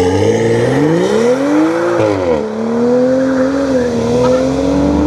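BMW M235i's turbocharged straight-six through an Armytrix aftermarket exhaust, accelerating away. The revs climb for about two seconds, fall sharply at an upshift, then rise slowly again in the next gear.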